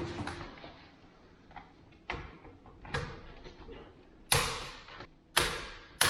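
Six sharp knocks or bangs at uneven gaps, the last three the loudest, each ringing on briefly in the room.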